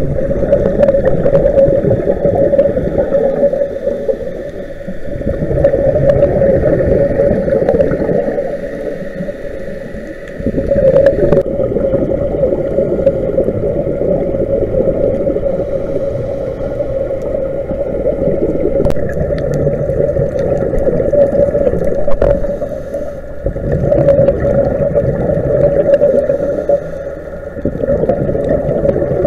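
Muffled underwater sound from inside a camera housing: a continuous drone with a steady hum, swelling and fading every few seconds and changing abruptly twice where the footage is cut.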